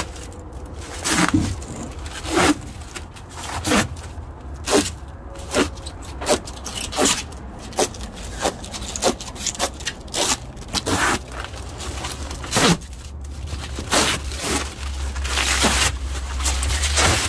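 Protective plastic film being stripped off a printed panel: a run of short crackling, scraping rips, one every half second to a second.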